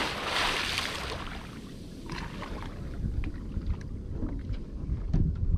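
Sounds aboard a small boat on the water: low, uneven rumbling of wind on the microphone with scattered faint knocks. A loud rush of noise fades away over the first second.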